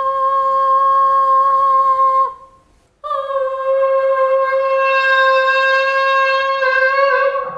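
A girl singing one long, steady high note into a microphone, pitched to the wine glass's natural frequency to drive it into resonance. The note breaks off about two seconds in for a breath, then is held again for about four seconds.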